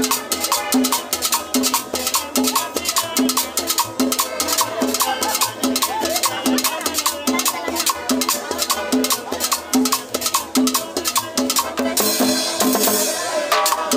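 A small live cumbia band playing, with accordion and guitars over a steady, quick percussion beat.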